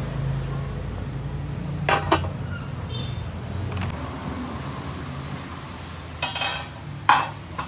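Metal clinks of an aluminium pot lid being handled on a large aluminium cooking pot, a few separate knocks about two seconds in, near four seconds and twice near the end, over a steady low hum.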